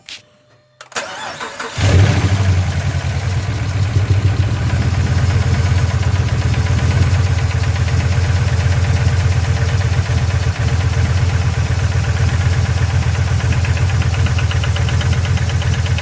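Hemi V8 engine cranking over and catching about two seconds in, then idling rough with a steady knock. The owner puts the rough running and knock down to a cylinder 6 misfire from an unseated valve pushrod.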